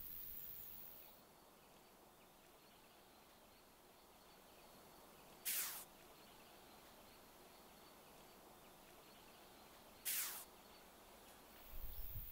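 Faint outdoor hiss with a thin, steady high tone. Twice a short, sharp whistle slides steeply down in pitch, about four and a half seconds apart. Near the end a low rumble starts.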